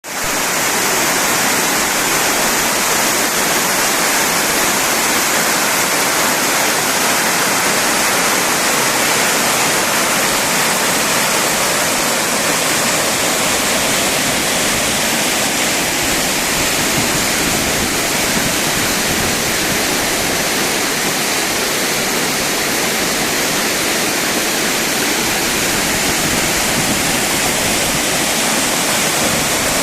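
Rushing of a three-tiered waterfall, about 50 m high, crashing down steadily, with the hiss strongest in the high range.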